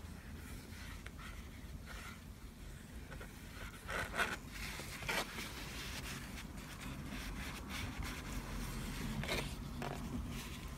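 A few short scrapes and clicks from art materials being handled while ink painting, in a pair about four seconds in, another a second later, and two more near the end, over a low steady hum.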